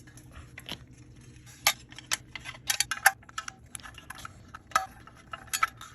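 Irregular light metallic clicks and taps of hand wrenches and an Allen key working the bolts of a motorcycle floorboard mount, a few in quick clusters.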